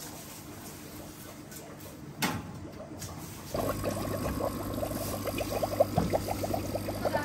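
Water splashing and bubbling, coming in suddenly about three and a half seconds in over a steady low hum. A single sharp knock sounds a little earlier, about two seconds in.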